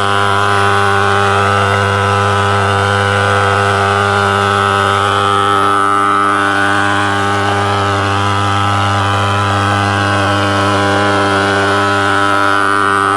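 Portable thermal fogger's pulse-jet engine running with a loud, steady drone while it blows out insecticide fog.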